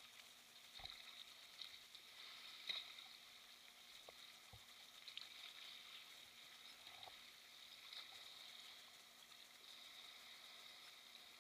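Near silence: faint water sounds of a sea kayak being paddled through choppy water, with a few small clicks.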